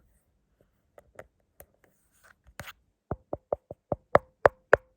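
Fingers tapping on a hard phone case: a few light clicks, then from about halfway a quick run of sharp knocks, three or four a second, growing louder.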